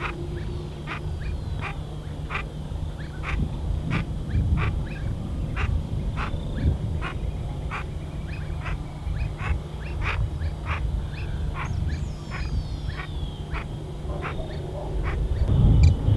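Brazilian teal calling: a long series of short, sharp call notes, about two a second, over a low rumble.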